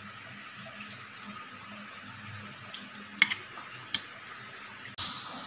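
Metal spoon clinking sharply twice against a steel bowl about three seconds in, as mushroom pepper fry is spooned into it, over a steady hiss. A louder rushing noise starts suddenly near the end.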